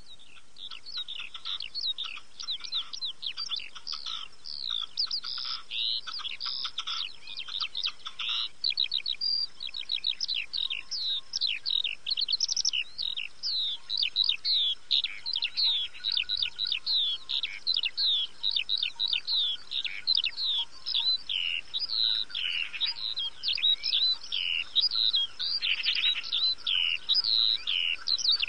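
Many small birds chirping: a dense stream of rapid, high, falling chirps that overlap almost without pause, louder in the second half.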